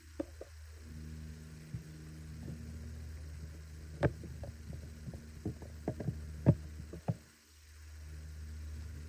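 A steady low hum with a few light clicks and knocks scattered over it. The hum cuts out briefly near the end, then returns.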